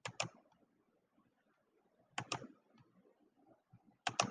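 Computer mouse clicking: three pairs of short sharp clicks about two seconds apart, with near silence between them.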